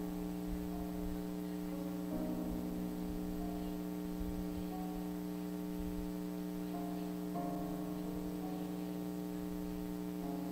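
Keyboard playing soft sustained chords over a steady low held note, the chord changing about two seconds in and again about seven seconds in.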